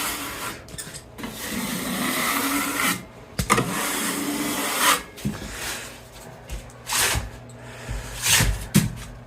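Steel putty knife scraping across half-set quick-set joint compound on a wall, shaving off ridges while the compound is not yet fully cured. There are several long scraping strokes in the first five seconds, then shorter strokes with a few sharp knocks of the blade.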